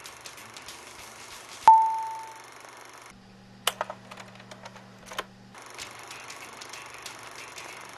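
Filmstrip advance chime: a single clear ding about two seconds in, fading out over most of a second. Underneath are a faint crackly hiss with scattered clicks and a low hum from about three to five and a half seconds in.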